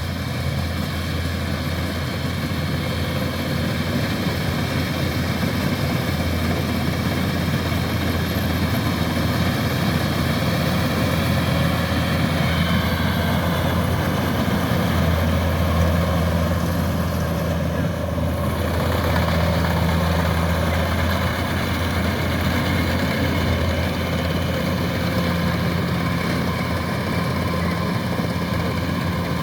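Kubota rice combine harvester's diesel engine running steadily under load with a constant low hum. A higher whine above it drops slightly in pitch a little under halfway through.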